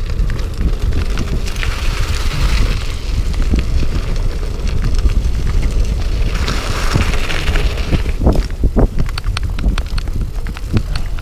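Riding a Pinnacle Neon 4 hybrid bike on a gravel path: wind buffets the microphone in a steady rumble over the tyres crunching on the gravel. Sharp clicks and rattles from the bike over bumps come thickest around eight to nine seconds in.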